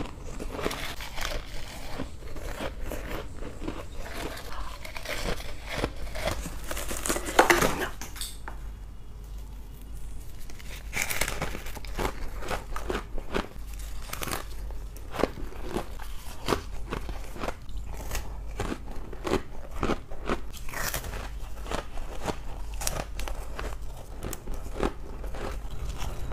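Biting and chewing chunks of frozen freezer frost and ice: a quick run of crisp crunches and crackles, broken by a pause of a few seconds about a third of the way in.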